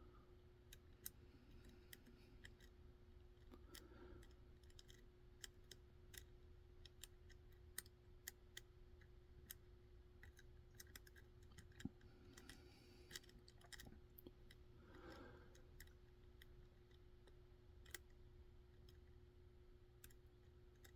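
Faint, irregular small clicks and ticks of a lock pick and tension tool working the pins inside a Mul-T-Lock Interactive cylinder.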